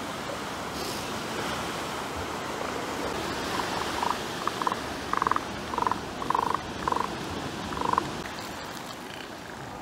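Elephant seals calling: about ten short, rapidly pulsed croaking calls between about three and a half and eight seconds in, over steady surf.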